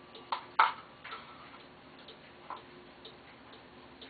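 Paragon rolling ball clock running, its chrome steel balls and mechanism giving sharp clicks over fainter ticking. Two loud clicks come within the first second, and another comes about two and a half seconds in.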